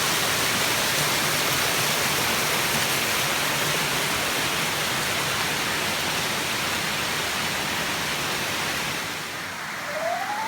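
Lumsdale waterfall: the steady rush of water falling over the rocks. It drops a little near the end, where a short rising whistle-like tone comes in.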